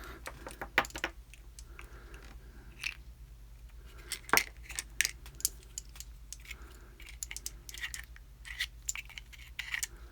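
Scattered small metallic clicks and ticks of a padlock core being taken apart by hand, with one sharper click a little over four seconds in.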